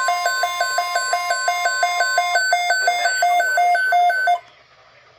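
Weather radio receiver sounding its alert alarm for a tornado watch: a two-tone warble, about four alternations a second, over NOAA Weather Radio's steady 1050 Hz attention tone. The steady tone stops about halfway through, and the warble cuts off sharply about four seconds in, leaving faint radio hiss.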